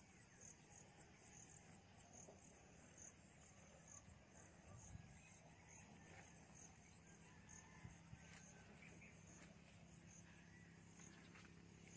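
Faint insect chirping: a high, pulsing call repeating about three times a second, over a low steady hum.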